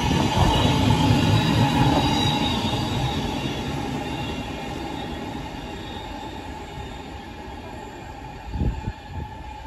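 Thameslink Class 700 electric multiple unit running through the station, its wheels squealing with a steady high note over the first couple of seconds. The rumble fades gradually over the following seconds, and a brief low thump comes near the end.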